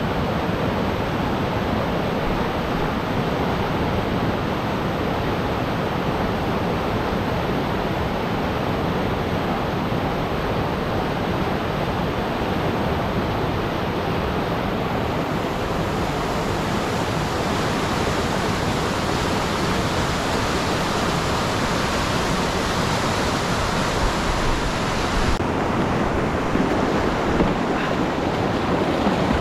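Whitewater rapids on a steep, fast creek heard from a kayak running them: a loud, steady rush of churning water splashing close around the boat and paddle.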